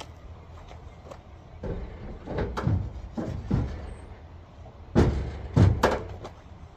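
Heavy knocks and clunks as a car battery is set into the engine bay and fitted. A few lighter knocks come about two seconds in, then two louder thumps near the end.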